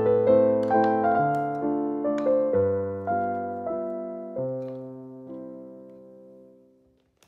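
Solo piano background music playing slow notes and chords; the last notes ring out and fade away to nothing near the end.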